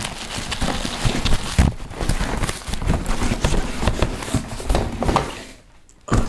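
Cardboard shipping box being handled and pulled open on a wooden table: rustling and scraping cardboard with a quick, uneven run of knocks and thumps. It goes quiet about five and a half seconds in, then one more knock near the end.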